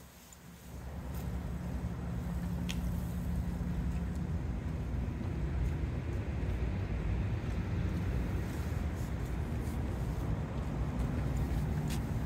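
Street traffic: motor vehicles running by with a steady low rumble of engines and tyres that swells up about a second in and holds.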